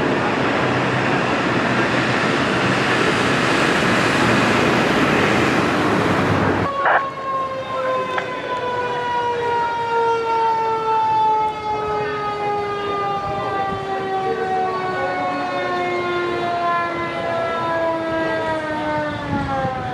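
A loud, steady rushing noise of road traffic and engine for about the first seven seconds. It cuts off suddenly, and a fire engine's siren then winds down in one long, slowly falling wail that drops away near the end.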